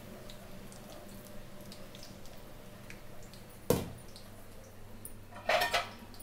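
Ivy gourd pakoras deep-frying in hot oil, with faint scattered pops and crackles. A sharp knock about three and a half seconds in, and a short louder crackle near the end.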